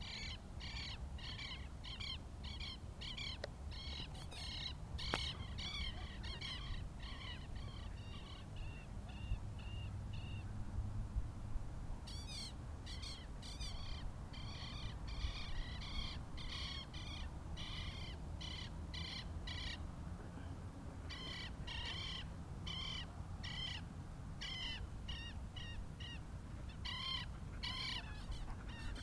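Bird calls repeated in quick series, about two to three short high calls a second, with a brief pause about twenty seconds in, over a steady low rumble.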